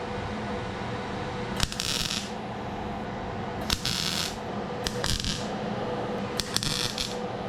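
MIG welder laying short tack welds: four brief bursts of crackling hiss, each about half a second long and each starting with a sharp click, over a steady hum.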